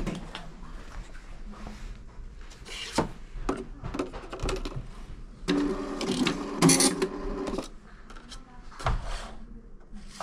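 MAX electronic time clock printing a time card: a mechanical whirr of about two seconds a little past the middle, the loudest part, after a few clicks and knocks of handling.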